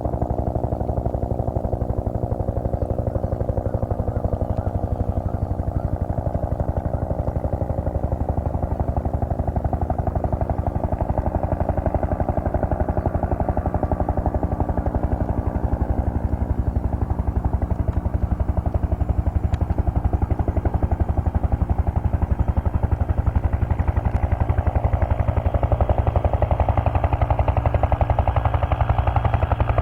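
Bell UH-1 Huey helicopter running with its turbine engine whining and the two-blade main rotor beating rapidly and evenly. It grows a little louder and brighter over the last few seconds.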